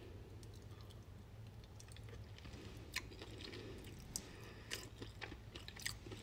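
Faint chewing with scattered small wet mouth clicks and smacks, more frequent after about two seconds in, as a person picks food from her teeth with her fingers.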